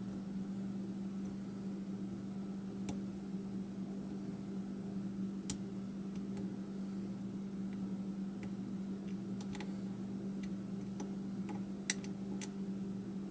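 Sparse light clicks of a lock pick working the pins of an American Lock 5200 padlock, a few seconds apart and coming a little more often near the end. A steady low hum runs underneath.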